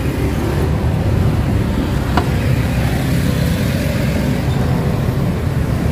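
Steady low rumble of nearby road traffic, with one sharp knock about two seconds in as the metal ladle strikes the aluminium broth pot.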